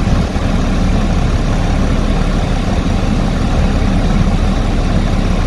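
BMW 730d's straight-six diesel engine idling steadily.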